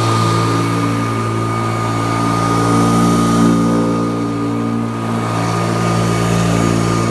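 Kirby Classic III upright vacuum cleaner running steadily, its motor hum carrying a high steady whine over a rush of air.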